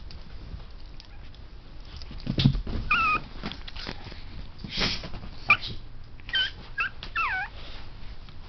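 Two-month-old Pomeranian puppy whimpering: several short, high-pitched whines from about three seconds in, the last one sliding down in pitch, among scattered thumps and scuffs.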